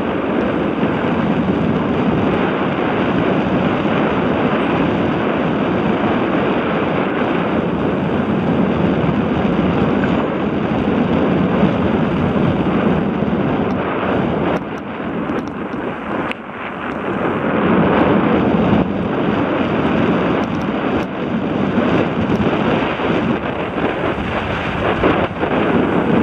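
Onboard sound of a 29er hardtail mountain bike ridden fast on a dirt singletrack: steady wind rush on a helmet-mounted microphone over tyres rolling on the dirt. Sharp knocks and rattles come from the bike over bumps, more often in the second half, and the rush eases for a couple of seconds about halfway through.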